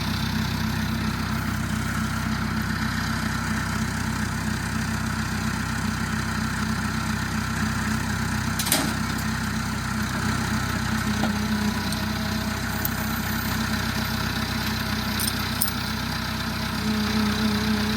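A vehicle engine idling steadily, with a single sharp knock about nine seconds in.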